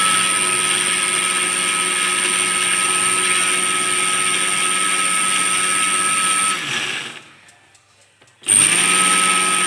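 Electric blender running, pureeing chopped onion with a little water, a steady high motor whine. It is switched off about six and a half seconds in, winds down, and starts again about a second and a half later.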